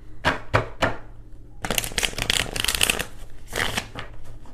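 Tarot deck being shuffled by hand: a few single card taps, then a stretch of rapid fluttering cards lasting over a second in the middle and a shorter burst near the end.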